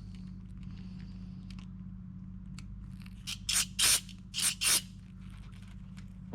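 Four short hissing blasts in two pairs, about a second apart, from a pressurised spray cleaning out clogged carburetor jets, over a steady low hum.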